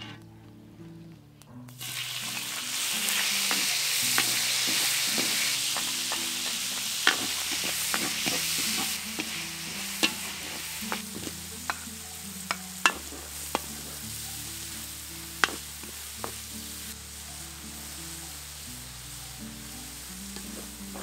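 Ingredients dropped into hot oil in a steel wok start sizzling loudly about two seconds in, then are stir-fried with a wooden spatula that knocks and scrapes against the wok, the sizzle easing as it goes on.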